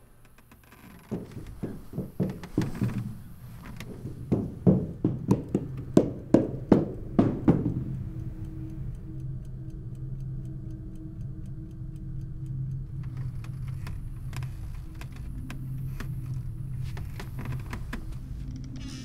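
Horror film soundtrack: a run of sharp knocks, about two a second, that grow louder for the first eight seconds or so. It then gives way to a low, steady drone with faint ticking over it.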